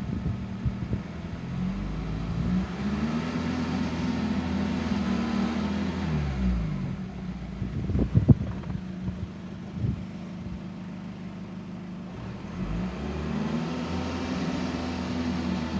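VW Golf 2.0 TDI four-cylinder diesel engine revved twice from idle, each time rising, holding for a few seconds and falling back, with a sharp knock between the revs. The owner suspects a failing turbo or a stuck-open EGR valve.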